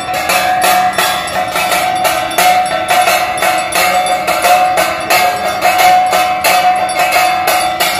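Brass hand bells and cymbals of a Hindu aarti, struck in a fast, even rhythm of about three clangs a second over a steady ringing tone.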